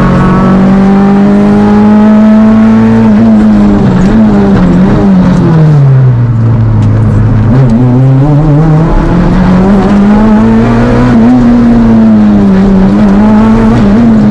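Fiat Panda Kit Car rally engine, heard onboard, pulling hard with the revs rising and falling through the gears. The revs drop right down about six seconds in, then climb again and swing up and down several more times.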